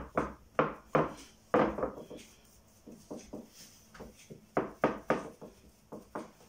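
Irregular dull knocks and taps, about two or three a second, as dough is pressed by hand into a metal baking tray. The knocks are softer in the middle.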